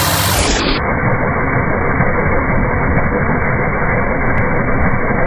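Power drill running steadily under load, boring a dryer vent hole through the wall.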